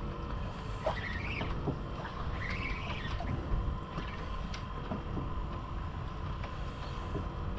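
Ambient sound aboard a small fishing boat at sea: steady low wind and water noise under a faint steady hum, with a few short high squeaks about a second in and again around two and a half seconds, and scattered faint clicks.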